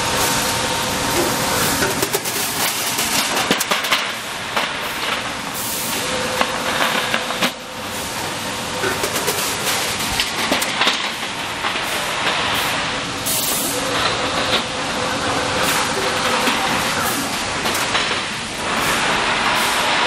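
Machinery on a sheet-metal tank production line running: a steady mechanical din with a faint hum, scattered clanks, and short hissing bursts every few seconds.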